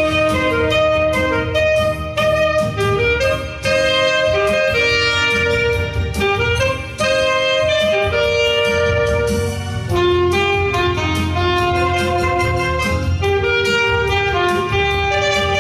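Two alto saxophones playing a melody in duet, at times in two-part harmony, over a backing track with a steady beat.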